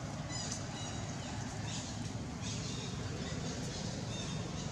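Baby macaque crying in high-pitched squeals: a short tonal squeal under a second in, then scratchier squeals around the middle. A steady low hum runs underneath.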